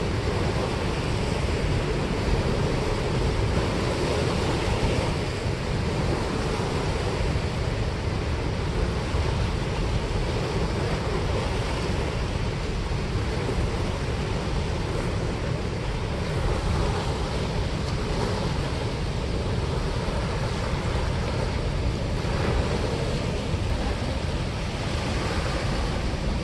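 Turbulent water rushing and churning out of a dam spillway, a steady, loud, unbroken noise.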